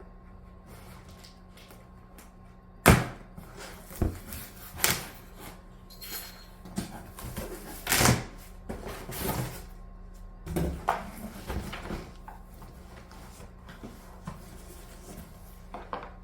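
Cardboard box and packaging being handled and opened: a sharp knock about three seconds in, then a run of thumps, rustling and scraping as the packed parts are pulled out, tailing off near the end.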